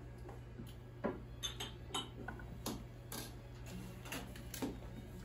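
Sparse, irregular clinks and taps of cutlery and dishes, about eight sharp ticks over a few seconds, over a low steady hum.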